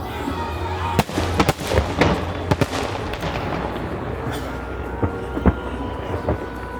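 Fireworks shells bursting in a rapid volley about a second in, then a few scattered single bangs.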